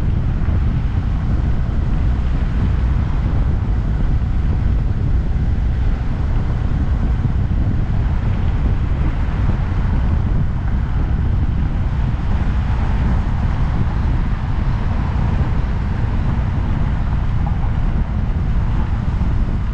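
Steady, loud wind rush buffeting the camera microphone while riding a 2022 Honda Grom, a 125 cc single-cylinder motorcycle, with its running noise mixed under the wind. It is steady throughout, with no clear change in engine speed.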